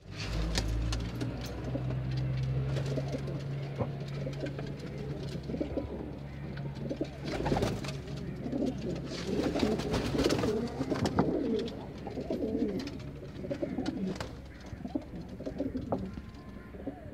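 Domestic pigeons cooing, many birds at once, the cooing going on throughout. A steady low hum runs under it for the first half, and a few short sharp noises are mixed in.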